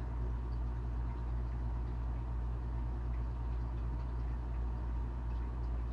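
Steady low mechanical hum at an even level.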